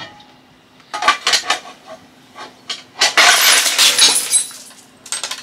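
Glass clinking, then shattering: the glass panel of a bioethanol fireplace breaking, with a few sharp clinks about a second in, about a second and a half of crashing, tinkling glass around three seconds in, and a couple of small clinks near the end.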